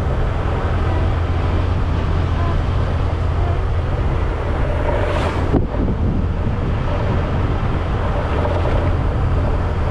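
Motorbike engine running steadily while riding, with wind rushing over the action-camera microphone. About halfway through, a brief swell of noise cuts off sharply.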